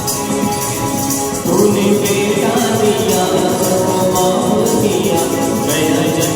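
Instrumental interlude of a devotional song: keyboard and other pitched instruments playing a melody over a steady beat with tambourine jingles, getting louder about a second and a half in.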